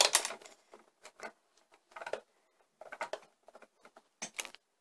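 Hard plastic moulds and head of a Play-Doh Perfect Pop maker toy clicking and knocking as the moulds are changed by hand, in several short bursts of clicks, the loudest right at the start.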